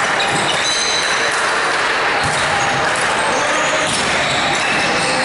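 Volleyball rally on an indoor court: athletic shoes squeak briefly on the floor several times, and a few sharp slaps of hands on the ball sound, over steady background noise.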